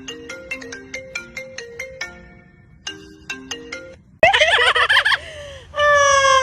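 A melodic phone ringtone of short, plucked, marimba-like notes plays for about four seconds. Then a parrot gives a sudden loud, harsh call, followed near the end by a long call that falls in pitch.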